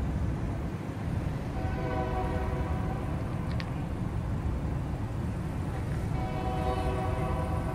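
A train horn sounding two long blasts, the first about a second and a half in and the second about six seconds in, over a steady low rumble.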